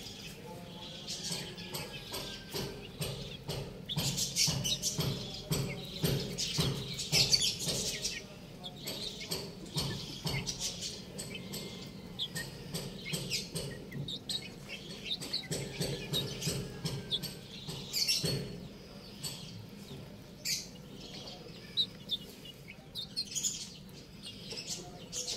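Young chickens cheeping and chirping as they feed, with many sharp taps of beaks pecking at scattered soil on a concrete floor. The calls and taps are densest about four to eight seconds in.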